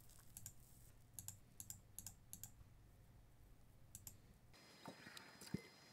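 Faint, irregular computer clicking, about ten small clicks in the first four seconds, from a mouse and keyboard used to click through an uninstall dialog; a couple of soft thumps follow near the end.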